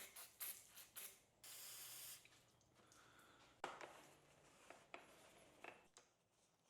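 Faint short hisses of spray cleaner, the longest just under a second, then quiet rubbing and a few light clicks as the bicycle's bottom bracket shell is sprayed and wiped clean.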